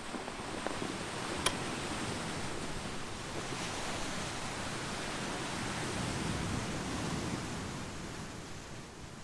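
Ocean surf washing over a beach of rounded volcanic boulders and pebbles, a steady rush of water that swells and then eases near the end. A single sharp click sounds about a second and a half in.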